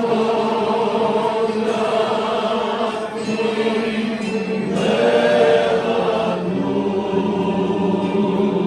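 A group of voices singing together in long held notes that change pitch every few seconds.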